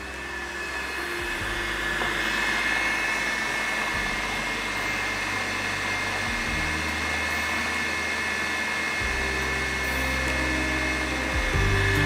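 Electric food processor running steadily with a high motor whine, grinding chicken mince with onion and green masala into a soft paste.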